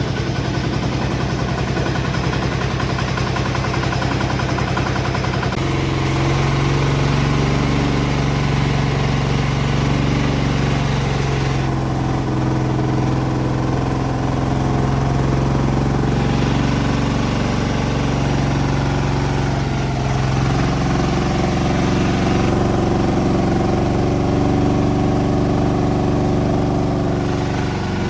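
Large horizontal band sawmill running steadily with a constant engine-like hum. The sound changes abruptly about five and a half seconds in, then stays steady.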